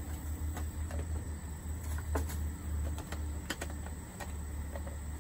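Kitchen scraps being shaken and tapped out of a small plastic container into a plastic compost bucket: a scatter of light taps and clicks over a steady low rumble.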